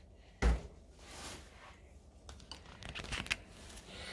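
Painting supplies being moved aside on a work table: one thump about half a second in, then a run of light clicks and rustles.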